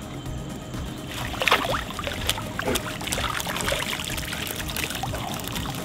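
Water splashing and streaming off a cylindrical mesh prawn trap as it is hauled up out of a river, starting about a second in and running on as a patter of drips and trickles.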